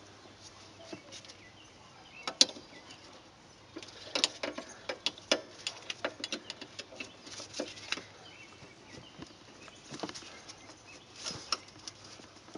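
Irregular small metallic clicks and clinks of a drum brake shoe's retaining spring being pushed in and turned to release it. There is one sharper click about two seconds in and a busier run of clicks from about four to eight seconds in.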